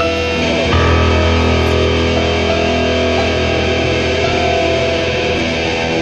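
Loud instrumental rock passage of electric guitar and grand piano holding sustained chords, moving to a new chord under a second in.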